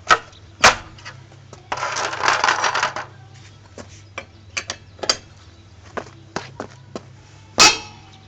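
Metal clanks and knocks of tools and wheel parts during a tyre change: two sharp ringing knocks, a second of rattling, scattered light clicks, and a loud clank near the end, over a steady low hum.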